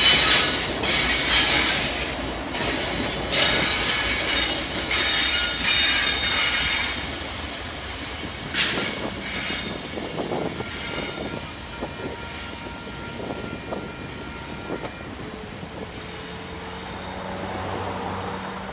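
Wheels of a loaded grain train of covered hoppers and rear locomotives squealing against the rails on a curve. The squeal is loudest and pulsing in the first several seconds, then fades as the train moves away, leaving quieter wheel clicks over the rail joints and a thin ringing squeal.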